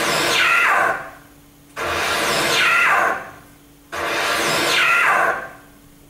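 Three bursts of hissing, whooshing noise about two seconds apart, from the electronics of a contemporary saxophone-and-electronics piece. Each starts abruptly, sweeps down in pitch, then fades, with a faint steady hum between them.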